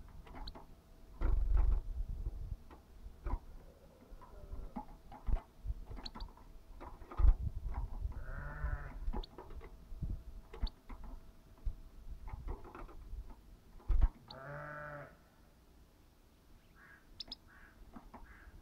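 Two bleats from a farm animal, each about a second long and some six seconds apart, over irregular sharp clicks and knocks. A few short high chirps come near the end.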